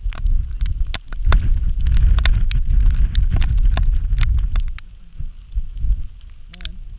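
Wind buffeting the camera microphone: a loud, uneven low rumble that swells about a second in and eases off near five seconds, with scattered sharp crackles throughout.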